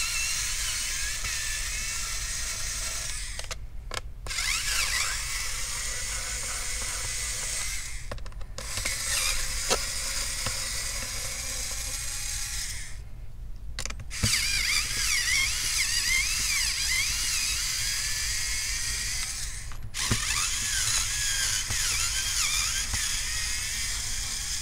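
Electric screwdriver whirring as it backs out the small Phillips screws along the edge of a laptop's aluminium bottom plate. It runs in five stretches of a few seconds each, with four brief pauses between screws.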